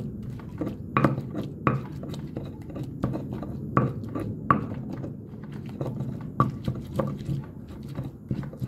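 Stone pestle (tejolote) pounding and grinding chiles in a volcanic-stone molcajete: irregular knocks of stone on stone, the loudest every half second to second, over a steady grinding.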